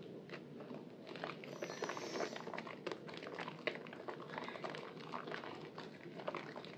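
Soaked Purbasari white bar soap being squeezed and mashed by hand in a basin of lather, giving a dense, irregular run of wet squelches and crackling foam.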